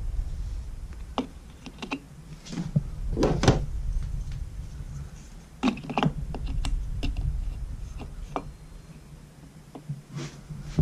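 Scattered light clicks and knocks as a steel chipper blade is handled and hung on a wall pin to check its balance, over a low handling rumble.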